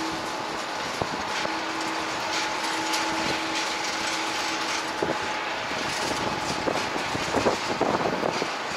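Steady jet airliner engine noise: a constant even wash with a faint steady hum, and a few short knocks near the end.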